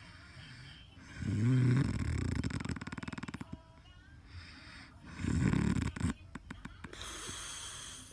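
A man snoring in his sleep: two long snores a few seconds apart, the first ending in a rattling flutter.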